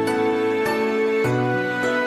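Background music: slow, gentle pitched notes held and changing about every half second to second.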